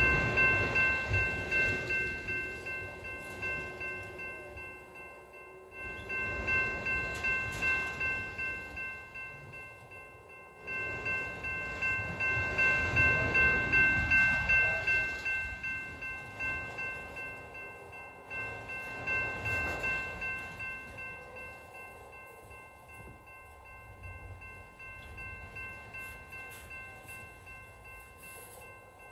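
Freight train of autorack cars rolling past: rumbling and rhythmic clacking of the wheels, swelling and fading in waves, with a steady high-pitched ringing tone held through much of it.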